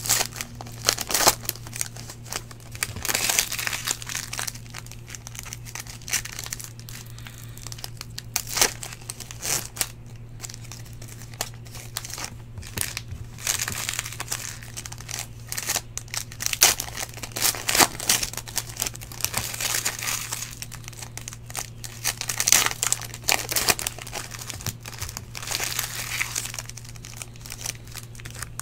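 Foil wrappers of 2015 Panini Prizm football card packs crinkling and tearing as the packs are ripped open and the cards handled, in irregular bursts of rustling with sharp crackles.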